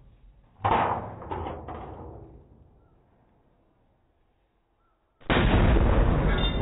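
Fireworks going off in a galvanized metal garbage can: about a second in, three sharp bangs that fade away. Near the end, after a quiet spell, a far louder firework erupts in a sudden continuous dense blast.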